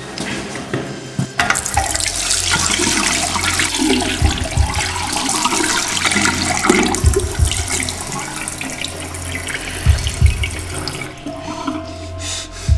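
Tap water running hard into a sink while hands are washed under it. It starts about a second and a half in and stops shortly before the end, over a low steady drone with a few deep thuds.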